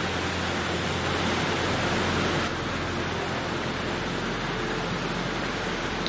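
Peavey Plaza fountain's water falling and splashing in a steady rush, easing slightly about two and a half seconds in.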